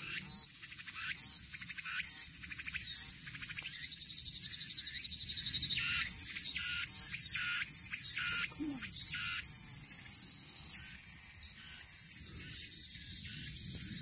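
Cicadas singing in a loud chorus. Short buzzing calls repeat about once a second at first. About four seconds in comes a rising, pulsing drone, then a choppy run of calls, then a steady high buzz that fades near the end.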